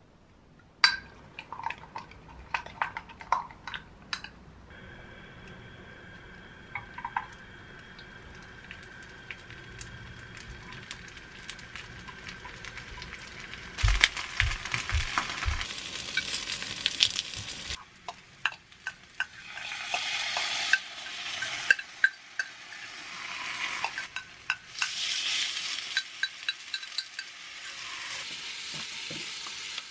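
Tofu cubes sizzling in oil in a square frying pan, with metal tongs clicking against the pan as the cubes are turned; a spoon clinks in a glass measuring cup of sauce at the start. From about two-thirds of the way in the sizzling gets louder and rougher as the sauce and a little water go into the hot pan.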